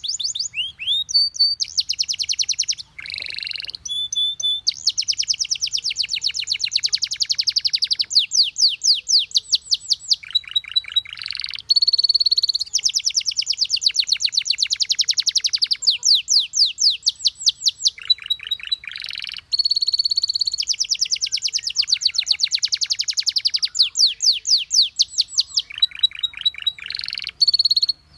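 Domestic canary song: long, fast trills of rapidly repeated notes, broken by short clear whistled notes.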